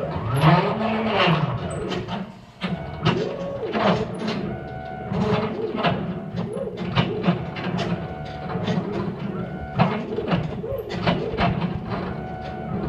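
ShopBot CNC router's stepper motors driving the axes through an air cut with no material. The motors whine in shifting tones that rise and fall as the axes speed up and slow down, with short clicks between moves.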